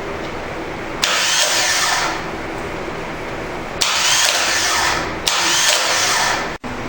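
Dodge Dakota V6 starter motor bench-tested with no load, spinning freely three times in bursts of about a second each as power is jumped to its solenoid S terminal, with a whine that rises as it spins up.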